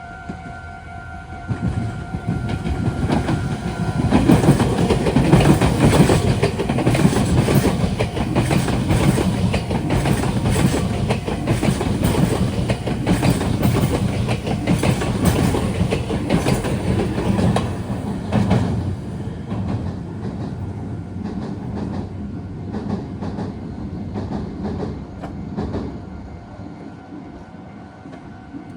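Meitetsu electric train passing over junction points, its wheels clacking over rail joints and switches, loudest from about four to eighteen seconds in and then fading away. A level-crossing warning alarm is ringing at the start until the train drowns it out.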